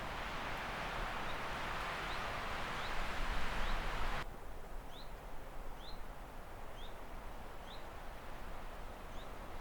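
A bird repeating a short, rising chirp about once or twice a second, over a steady rushing hiss of outdoor ambience. The hiss cuts off suddenly about four seconds in, leaving the chirps over a fainter background.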